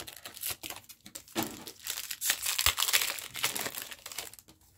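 Foil wrapper of a Pokémon card booster pack crinkling and tearing as the pack is opened, a dense irregular run of small crackles.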